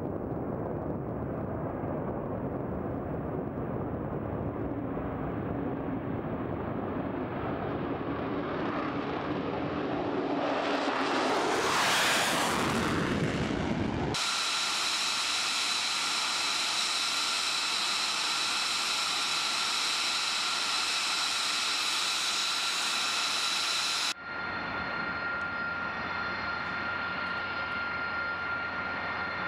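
F-35B jet engine noise swells to a loud peak about twelve seconds in as the jet passes. After an abrupt cut it becomes a steady high-pitched turbine whine. A second cut near the end brings a similar whine with a low hum beneath it.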